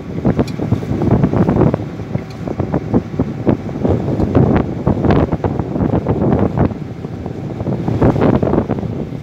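Wind buffeting the microphone on the open deck of a moving boat, in uneven gusts that rise and fall throughout.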